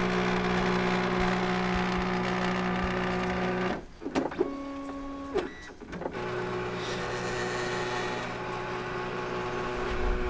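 MakerBot Replicator+ 3D printer running as it warms up for a print: a steady mechanical hum of several held tones. From about four seconds to six seconds in, the hum drops out and is replaced by a brief higher whine with a few clicks, then the hum comes back.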